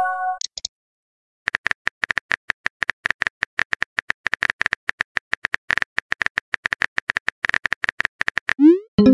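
Simulated phone-keyboard typing clicks, several a second in an even stream, as a text message is typed out. A short tone ends right at the start, and near the end a rising swoosh and chime mark the message being sent.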